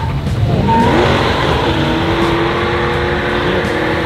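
Muscle cars doing burnouts: V8 engines revving hard with the rear tyres spinning and squealing. The engine note rises sharply about half a second in, then holds at high revs.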